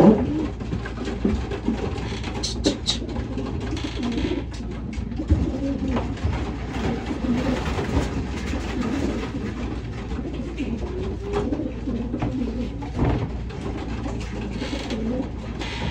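Racing pigeons cooing, several birds overlapping, with a few short clicks among them.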